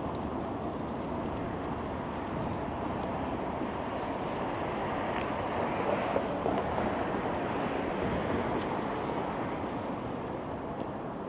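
Steady rushing noise of city street traffic mixed with strong wind, swelling slightly partway through.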